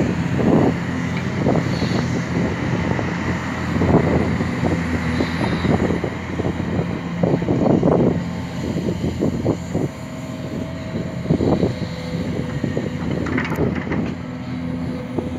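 Hitachi Zaxis 490 LCH excavator's diesel engine running steadily, with irregular bursts of clatter every second or two from the machine working.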